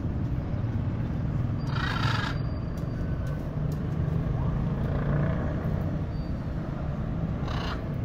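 Blue-and-yellow macaws giving two short, harsh squawks, one about two seconds in and one near the end, over a steady low rumble.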